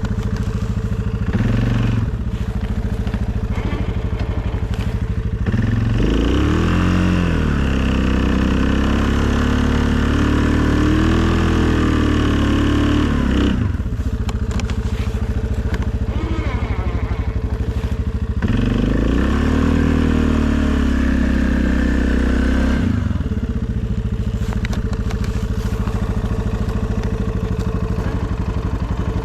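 2020 Suzuki KingQuad ATV's single-cylinder four-stroke engine running at a steady low idle. It revs up twice, about six seconds in and again near nineteen seconds. Each time it holds the higher revs for several seconds before dropping back to idle.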